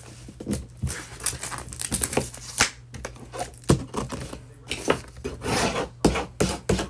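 Hands sliding, pressing and smoothing a vinyl sheet on a tacky Cricut cutting mat to get it straight: irregular rustles, rubs and sharp little taps and crackles.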